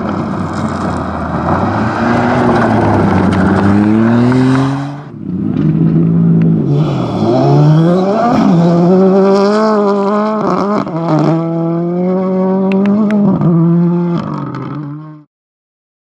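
Rally car engines at full throttle on a gravel stage, pitch climbing and dropping back at each upshift. About five seconds in the sound breaks to a second rally car revving hard through quick gear changes with crackles, then it cuts off suddenly near the end.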